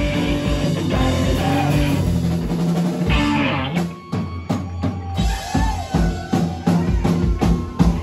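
Live rock band playing: guitar, keyboard and drums at full volume, dropping out abruptly about four seconds in, then sharp drum hits as the band comes back in.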